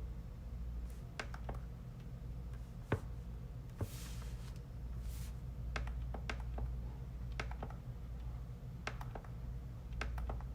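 Irregular clicks of a computer mouse and keyboard keys, a few at a time in small clusters, over a steady low hum.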